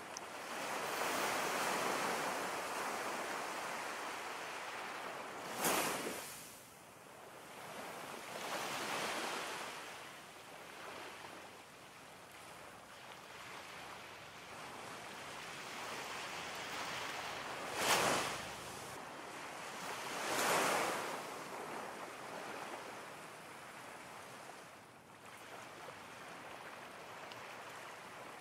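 Ocean surf: waves washing in and drawing back in slow swells, with sharper wave breaks about six seconds in and again near eighteen and twenty seconds.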